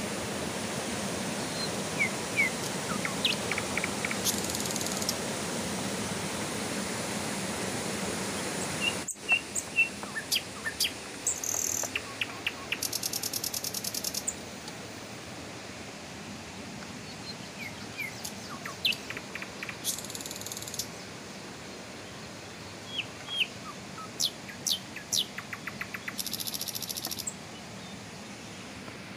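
Steady rushing of a small rocky river with scattered bird chirps over it. About nine seconds in the water sound drops away, and bird chirps continue with a few short, very high buzzing trills.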